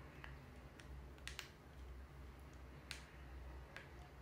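About six faint, sharp plastic clicks, spread out, from a small action camera being handled in the fingers and its buttons pressed, over a low steady hum.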